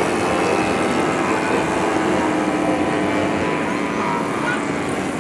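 Engines of several radio-controlled WWI scale model airplanes droning together as they fly, several steady tones overlapping, with a few small rises and falls in pitch toward the end.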